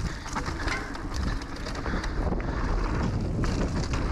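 Haibike Nduro e-mountain bike rolling fast down a leaf-covered dirt trail: wind buffeting the mounted camera's microphone over a steady rumble from the tyres, with frequent small clicks and rattles from the bike.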